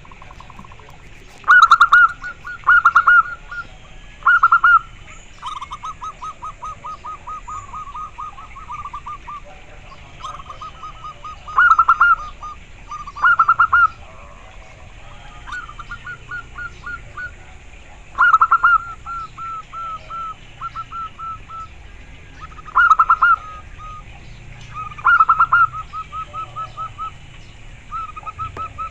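Zebra dove (perkutut) cooing: loud clusters of quick staccato notes alternate with softer, longer runs of rapid coos, one phrase after another every couple of seconds.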